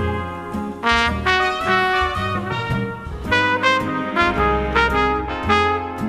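Background music: a big band jazz ballad led by trumpets and trombones.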